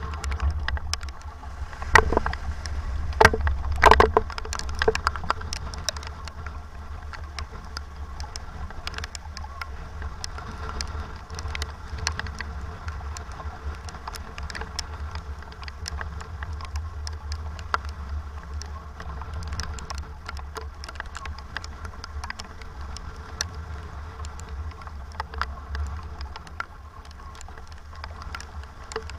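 Sailboat under way in strong wind and rain: wind buffeting the microphone in a constant low rumble, with a scatter of sharp ticks throughout and a cluster of louder knocks about two to four seconds in.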